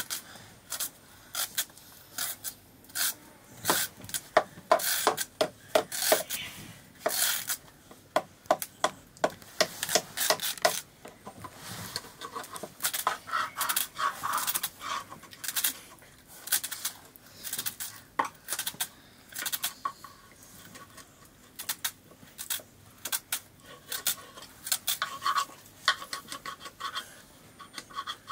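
A knife blade cutting and scraping through raw pumpkin, with short rasping strokes that come in quick bursts of several a second.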